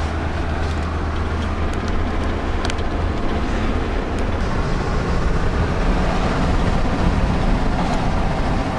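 Road noise inside a moving pickup truck's cabin: a steady rush of tyres and engine at highway speed, with a few faint ticks in the first half.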